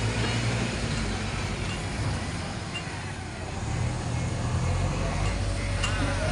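JCB 3DX backhoe loader's diesel engine running under changing load. The engine note eases off about two seconds in and builds up again past the middle.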